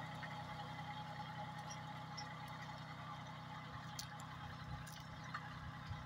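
Kubota compact tractor's diesel engine running steadily while pulling a tine cultivator through the field.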